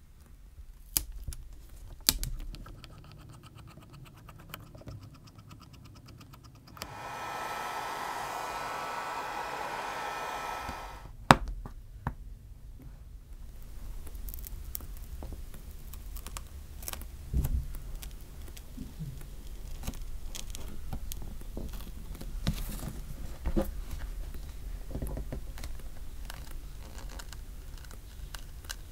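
Clear wrap tape being pulled and pressed onto a cracked iPhone 12's back glass, with sharp clicks, then a steady rushing hiss for about four seconds ending in a loud click. From about halfway, a plastic pry tool clicks and scrapes along the screen edge as the display is worked loose from the frame.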